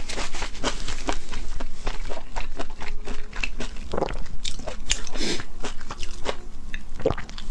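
Close-miked chewing of a mouthful of raw marinated shrimp with the mouth closed: a run of quick, irregular wet clicks and smacks.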